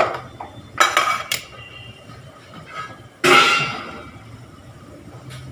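Kitchen dishes and utensils clattering as they are handled and set down: a few clinks about a second in, then one loud clank a little after three seconds that rings briefly.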